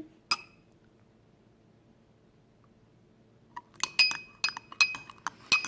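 A spoon clinking against a dish while a dish-soap and salt slime mixture is stirred: one click near the start, then a run of quick ringing clinks from about four seconds in.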